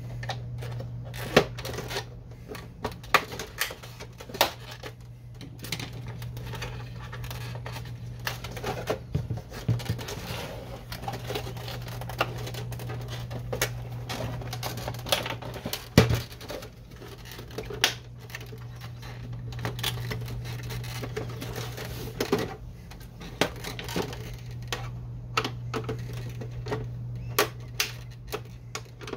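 Plastic clicks, snaps and knocks from a Canon Pixma MG5520 printer's casing as its side-panel clips are pried loose with a thin tool and the printer is shifted about, scattered irregularly over a steady low hum.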